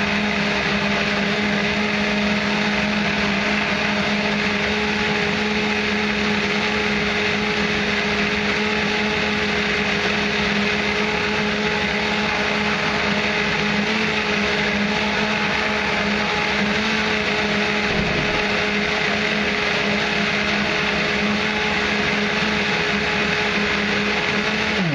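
Countertop blender running steadily at an even pitch, pureeing cranberries, raisins and water into a thick wine must. It is switched off at the very end and stops abruptly.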